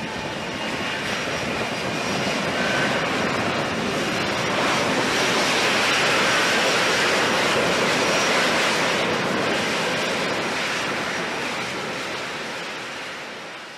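F-35B Lightning II's jet engine running at hover thrust with its lift fan engaged, as the jet holds a vertical-landing hover. A steady jet roar grows louder to a peak midway, then fades near the end.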